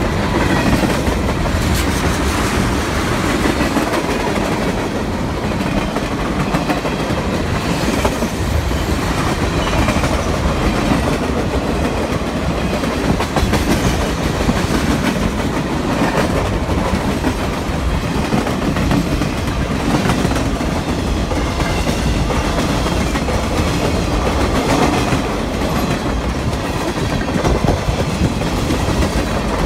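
Freight cars of a CSX mixed freight train rolling past close by: a steady loud rumble of steel wheels on the rails, with repeated clicks throughout.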